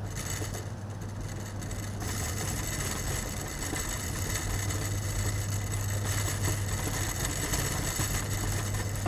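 Steady electrical or mechanical background hum with a hiss and faint high whine, stepping up in loudness about two seconds in.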